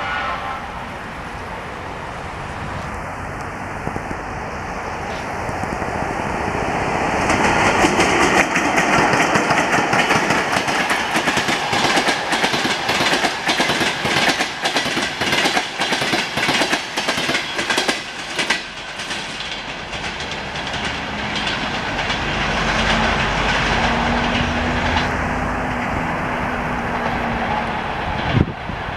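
Passenger train hauled by a ChS7 electric locomotive running past, its rolling noise building up. From about seven seconds in comes a long run of rapid wheel clacks over the rail joints, the loudest part. The coaches then roll on with a steadier rumble.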